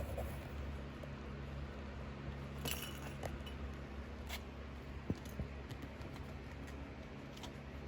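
Four-week-old Maine Coon kittens scrabbling and playing, their paws and claws making scattered light clicks and taps over a steady low hum.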